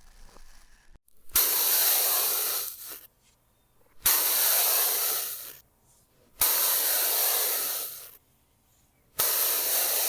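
Four loud bursts of hissing noise, each a second and a half to two seconds long, starting with a sharp click and then fading away, with short silences between them; the sound plays in reverse.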